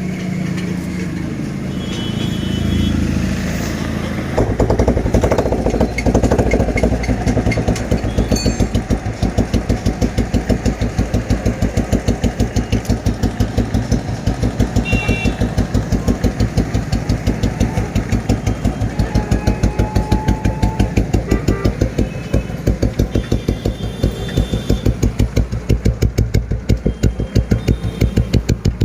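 An old Royal Enfield Bullet single-cylinder engine catches about four seconds in, then idles with its steady, even thump, running on freshly set contact-breaker points. Before it catches there is a low, uneven rumble.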